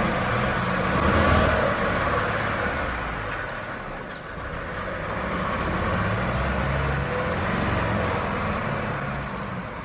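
VW Amarok engine running and revving unevenly, its pitch rising and falling twice, as the truck struggles to pull away with the misfire it keeps suffering.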